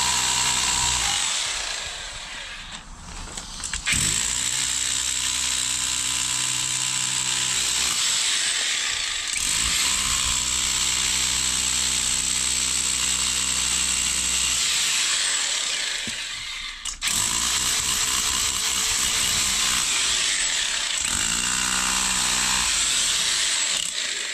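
Electric rotary hammer chiselling away an old, crumbling concrete foundation, running in long bursts and stopping briefly a few times before starting again.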